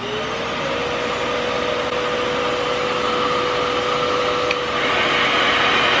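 Revair reverse-air hair dryer's motor running on level 2: it finishes spinning up with a rising whine in the first half second, then holds a steady hum over a rush of moving air, which grows a little louder about five seconds in.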